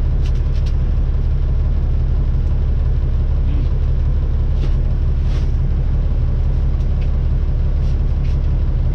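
Heavy diesel truck engine idling with a steady low rumble, heard from inside the sleeper cab. Faint short clicks and crinkles of tint film being pressed onto the window come through above it.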